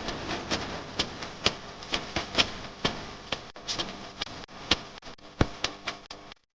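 Irregular light clicks and taps, a few a second, over a faint background hiss, cutting off abruptly near the end.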